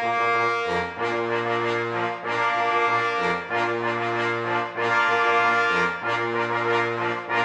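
Brass fanfare of sustained chords, each held for about a second and broken by short breaks.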